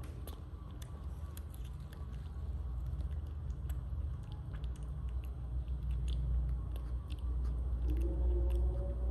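Baby monkey chewing food with small, irregular smacking clicks, its cheek pouch full, over a steady low rumble.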